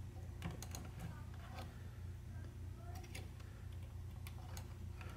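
Faint, irregular small clicks and taps of a thin wire end being worked by hand into a plastic connector on a cassette radio's circuit board, over a steady low hum.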